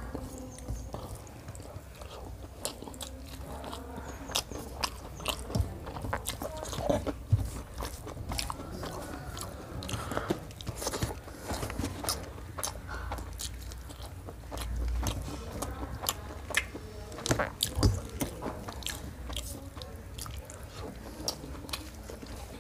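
Close-miked chewing and mouth sounds of a man eating rice and chicken curry by hand: irregular wet smacks and clicks.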